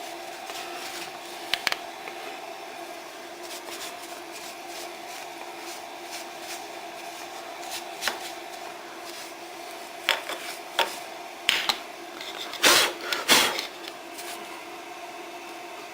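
A steady electric hum runs under scattered clicks and knocks, like tools or metal parts being handled on a workbench. The knocks grow more frequent later on, and the two loudest come close together about three-quarters of the way through.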